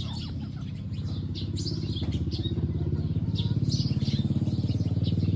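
A small engine running steadily with a fast, even pulse, with short high bird chirps over it.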